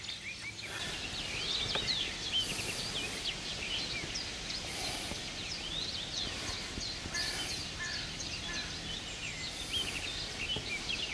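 Many birds singing at once, a dense chorus of short chirps and whistles, with a short high hiss coming back about every two and a half seconds.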